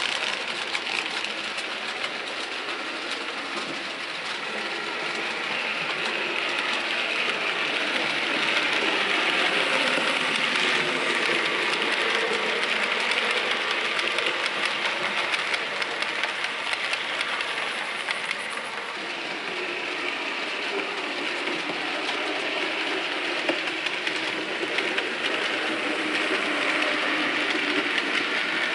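Model railway train running along the layout track: a steady whirring rattle of motor and wheels with rapid fine clicking over the rail joints. It grows louder about a third of the way in and again near the end as the coaches pass close by.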